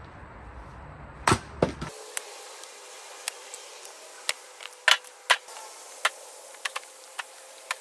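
Split firewood being thrown into a steel wheelbarrow: a string of sharp wooden knocks and clunks, roughly one a second, after two heavier thuds about a second in.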